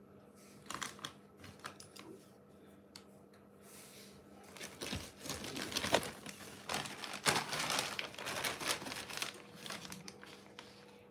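Thin plastic bag crinkling and rustling as it is shaken and handled, starting about four seconds in, loudest in the middle and dying down near the end, after a few light clicks earlier on.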